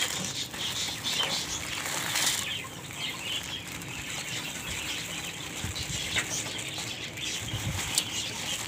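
Wheat grains poured onto millet in a metal tub: a hissing patter of falling grain for the first two seconds or so, then softer rustling and scattered ticks as a hand works through the grain.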